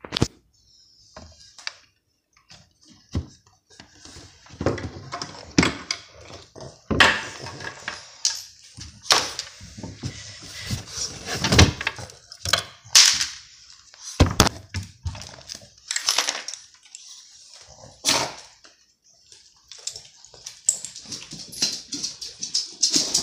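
A pug making short, irregular noises, mixed with repeated knocks and scuffling on a tile floor.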